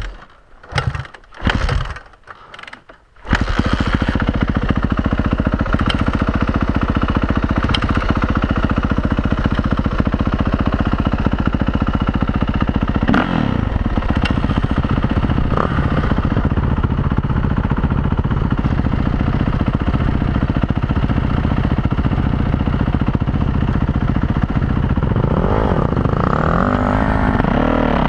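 Dirt bike engine starting: a few short bursts in the first three seconds, then it catches and runs at a steady idle close by. Near the end a second dirt bike's engine revs up and down as it pulls away.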